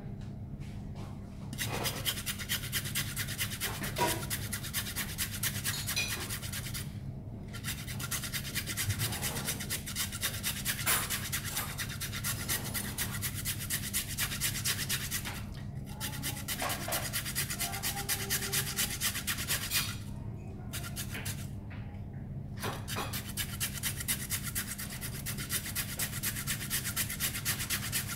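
A carrot being grated on a flat handheld metal grater. The rasping strokes come about three a second, in four runs broken by three short pauses.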